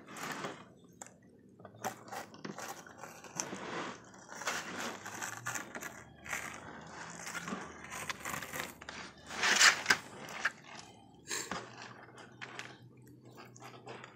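Knife cutting and scraping through a large sturgeon's flesh along the backbone: irregular crunching and scraping strokes, with one louder scrape about ten seconds in.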